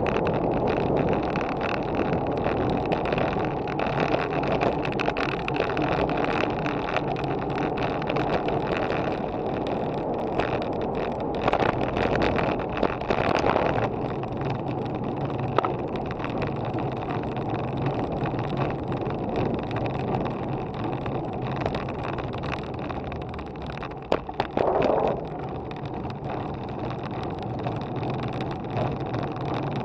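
Wind rushing over a bike-mounted action camera's microphone, with the road bike's tyres rolling on asphalt and many small rattles and knocks from bumps in the surface. The rush eases a little after about 14 s as the speed drops on the climb, with a short louder burst about three-quarters of the way through.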